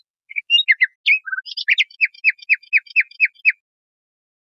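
Nightingale singing one phrase: a few varied chirps and a short trill, then a run of about eight sharp, falling notes at roughly four a second.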